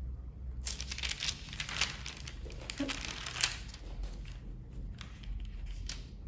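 Page of a stamp stock book being turned by hand, the translucent protective interleaf and the stiff leaf rustling and crinkling for about three seconds, followed by a few fainter rustles as the page is smoothed down.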